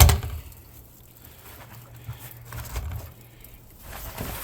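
A sharp knock, then rustling and crinkling as small camping items are handled and taken out of a kit, with a few soft thumps.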